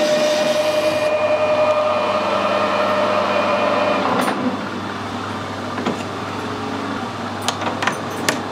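Metal lathe turning a steel bar, with a steady whine and cutting hiss on material that cuts poorly; the cutting hiss ends about a second in and the whine stops about four seconds in, leaving a lower hum. A few sharp metal clicks follow as the tool post is handled.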